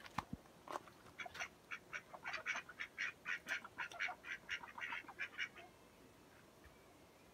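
Domestic ducks quacking: a quick run of short quacks, several a second, lasting about four seconds.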